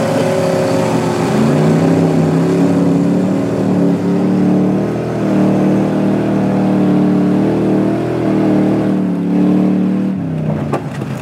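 Ice-racing car's engine running hard under throttle, recorded on board. Its pitch rises and falls as it revs through the turns, then drops away about a second before the end as it comes off the throttle.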